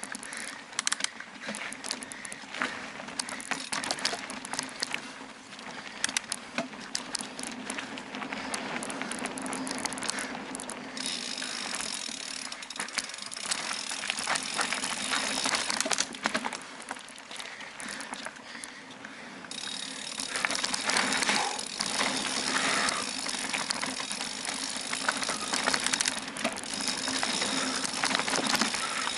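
Mountain bike ridden over a rough dirt forest trail: continuous rattling and clicking of the bike over roots and stones, with stretches of steady high hiss for about five seconds near the middle and again from about two-thirds of the way in.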